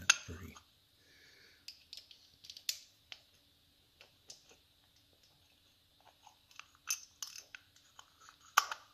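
Scattered small clicks and taps of metal parts and hand tools being handled while the ignition cover is fitted to the Norton Commando's engine, with a sharper click just after the start and another cluster near the end.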